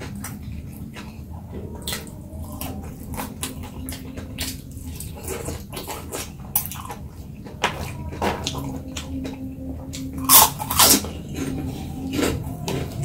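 Close-miked eating: chewing a mouthful of rice and side dishes, with frequent small wet mouth clicks and smacks. There is a louder burst about ten seconds in.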